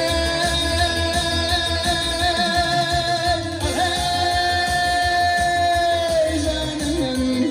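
Male vocalist singing into a microphone, holding two long notes one after another, over amplified backing music with a steady low beat.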